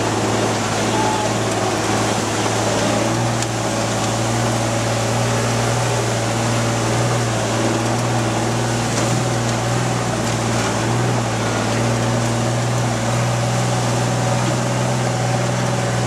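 Magirus-Deutz 192D11 fire engine's air-cooled Deutz diesel running steadily under way, heard from inside the cab as a constant low drone.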